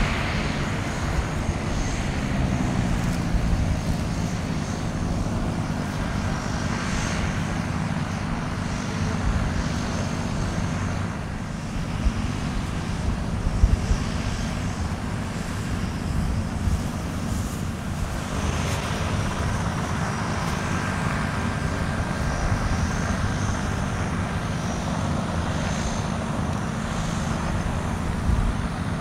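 Twin PT6A turboprop engines of a U.S. Navy UC-12F Huron (military Beechcraft King Air) running on the ground. It is a steady propeller drone with a faint high turbine whine that comes and goes.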